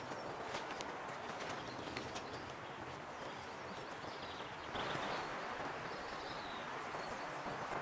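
Cord and tarp fabric rustling as a paracord lashing is pulled tight around wooden tent poles, with a louder rustle about five seconds in. Faint bird calls sound in the forest behind.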